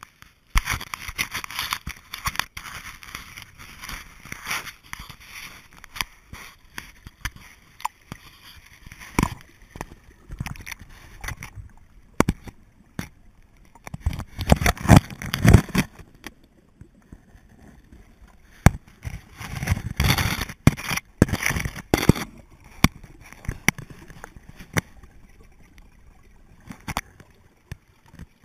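Irregular close scraping, crunching and clicking against snow and rock, louder and rougher about halfway through and again about two-thirds through.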